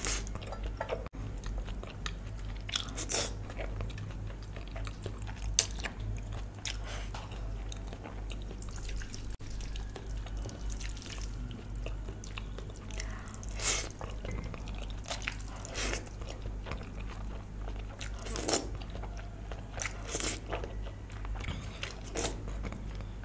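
A person eating close to the microphone: chewing, with a short, louder mouth sound every couple of seconds, over a steady low hum.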